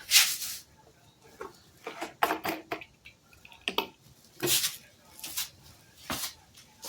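Irregular short knocks and clatters of hard objects being handled, about eight in all, with quiet gaps between them.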